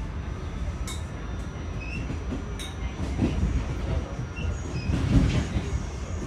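R46 subway car running at speed, heard from inside the car: a steady low rumble of wheels on rail, with two sharp clicks, about a second in and again a couple of seconds later, and the rumble swelling louder midway and again about five seconds in.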